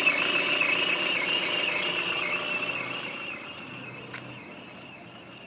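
Peugeot 307 2.0 petrol engine running cold with a wavering high-pitched squealing whistle from the belt drive, which the owner puts down to the tensioner pulley. The squeal is loud at first and fades away from about three seconds in.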